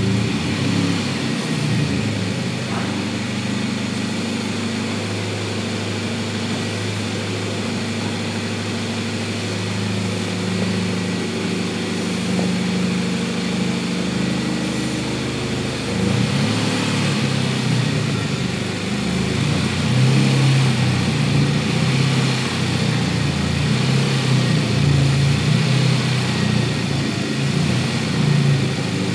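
Swapped-in Hyundai 1.6-litre turbocharged four-cylinder engine in a 1995 Avante, running at low revs as the car creeps along under its own power. It gets louder and more uneven from about halfway through.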